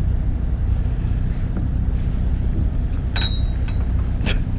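A fishing boat's engine runs with a steady low hum. Over it come a few small sharp metallic clicks, about a second and a half apart, as the hook and rig are handled.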